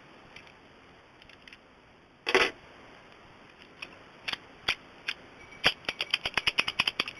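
Light metallic clicks and a short scrape from a padlock and lock picks being handled. After a few scattered clicks, a quick run of clicks comes near the end, about seven a second.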